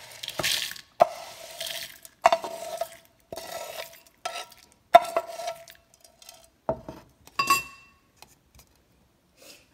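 Metal spatula scraping and knocking against a frying pan as roasted chana dal and dried red chillies are pushed out into a bowl. There are several sharp clanks that ring briefly, with gritty scrapes between them, and it dies down over the last couple of seconds.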